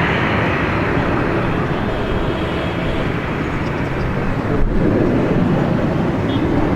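Boeing 737-700 jet engines running loud and steady, a dense rumble and roar without clear tones. A single brief knock about four and a half seconds in.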